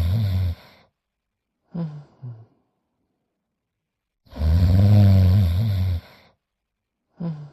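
A cartoon dog's exaggerated, voiced snoring in a repeating cycle: a long, loud, rasping snore with a deep buzz, followed by two short, quieter breaths. The cycle comes round twice. The first snore is tailing off at the very start, and the second runs from about four to six seconds in.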